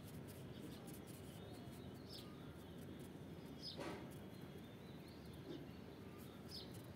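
Quiet background hiss with a few faint, short bird chirps, one a little louder about four seconds in.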